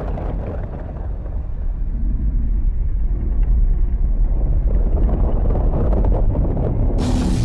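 Deep, continuous rumbling monster-film sound effect, heavy in the bass and slowly building. Near the end a brighter, fuller layer with some held tones cuts in suddenly.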